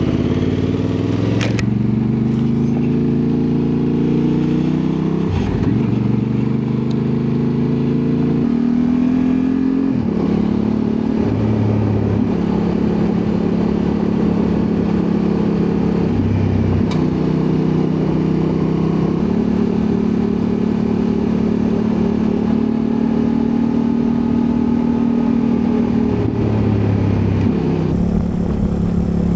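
Honda Transalp 750's 755 cc parallel-twin engine running under load while riding off-road. The engine speed climbs at first, then holds and shifts in steps up and down every few seconds, with an occasional brief knock.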